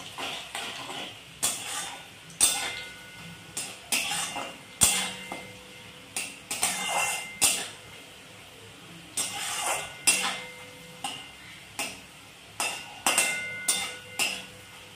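A long flat metal spatula scraping and knocking against the side of a metal kadai as onions are stirred. The strikes come irregularly, about one or two a second, some leaving a short metallic ring.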